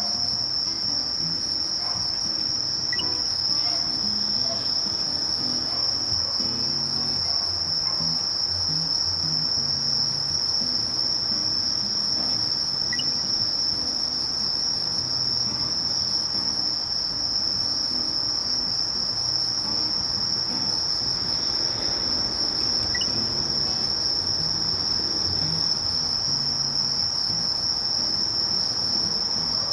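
Sasakiri katydid (Conocephalus melaenus) singing a steady, unbroken high-pitched trill.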